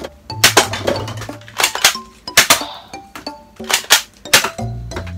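Toy spring-powered soft air gun revolver being cocked and fired: a run of sharp plastic clacks at irregular intervals, often in quick pairs, over background music.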